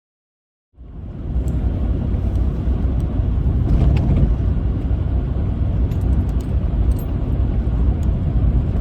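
Vehicle driving, a steady low rumble of engine and road noise that cuts in suddenly just under a second in, with a few faint clicks over it.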